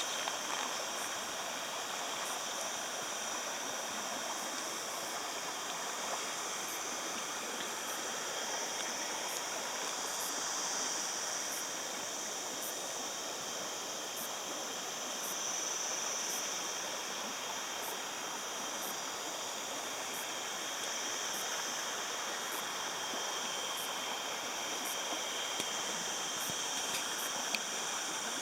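Río Cebollón river running: a steady, even rush of flowing water.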